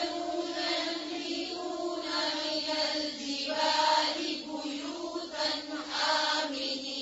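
A female voice reciting Quran in a slow tajweed chant, with long held notes.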